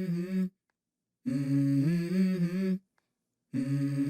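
Background music: a hummed vocal melody of steady, stepwise notes in three short phrases, broken by dead silences.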